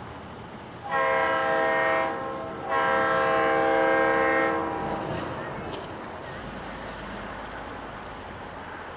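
Diesel locomotive air horn sounding two blasts from out of sight, a shorter one about a second in and a longer one soon after, each a steady multi-note chord.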